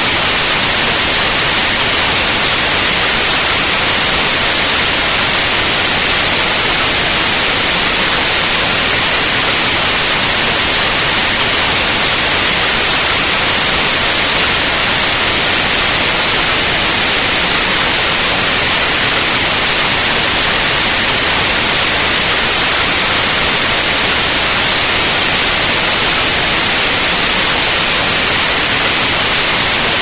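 Loud, steady white noise: an even hiss with no changes, strongest in the highs.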